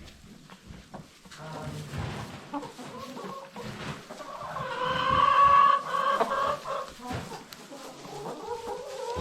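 Isa Brown laying hens clucking and calling in the coop. About halfway through, one bird gives a loud, drawn-out call of about two seconds.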